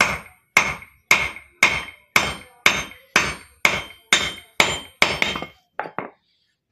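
Hammer blows on metal, about two a second, with a metallic ring, driving a 6004 ball bearing down into its seat until it sits flush; about a dozen strikes, the last two lighter and quicker near the end.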